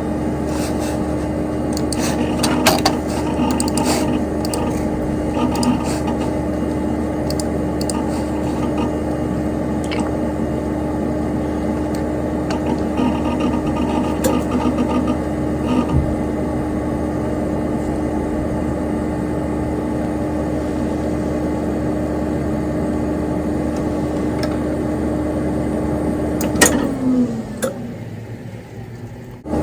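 Dell Dimension XPS P100c desktop computer's cooling fan and hard drive running with a steady whirring hum and a constant tone, with occasional light clicks. About 27 seconds in there is a sharp click, and the hum winds down, falling in pitch and fading, as the machine powers down.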